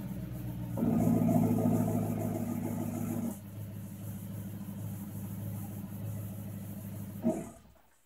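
2008 Audi RS4's 4.2-litre V8 running through a rear-mounted turbo exhaust: idling, louder and fuller for a couple of seconds about a second in, then settling back to idle. Near the end a short burst, then the engine shuts off.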